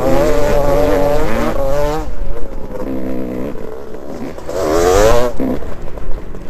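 Motocross dirt bike engine heard from on the bike, revving up and dropping back as the rider works the throttle over the track, with a second sharp climb in pitch about five seconds in.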